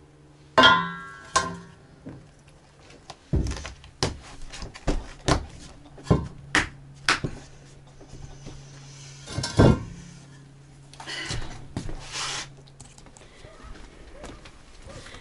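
Kitchen utensils and containers being handled around a large metal basin: a ringing clatter about half a second in, then a string of knocks and clicks as a plastic lid, tub and ladle are set down, and a brief plastic rustle near the end, over a steady low hum.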